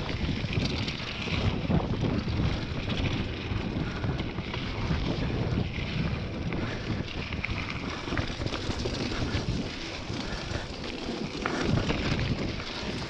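Mountain bike descending a dry, rutted dirt singletrack: wind buffeting the microphone over the tyres rolling on loose dirt, with many small knocks and rattles from the bike as it bounces over bumps.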